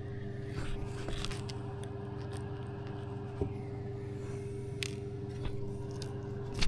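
A steady low hum with a few light clicks and scrapes of small parts being handled.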